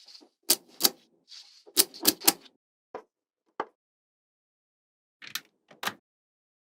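Small magnetic balls clicking sharply as they snap together, with a short rattle of balls sliding between the first clicks. The clicks come in a quick run, stop for about a second and a half, then two more come near the end.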